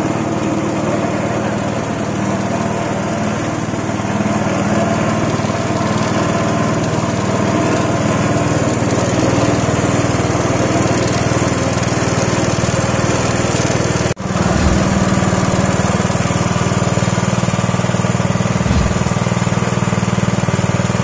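A ginger and turmeric pressing machine running steadily, its motor giving a constant low hum. The sound breaks off for an instant about two-thirds of the way through, then carries on.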